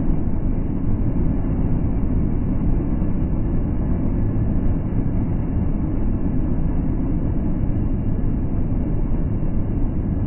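Steady engine and road noise inside a semi truck's cab cruising at about 75 mph, picked up by the dash cam's microphone and sounding muffled.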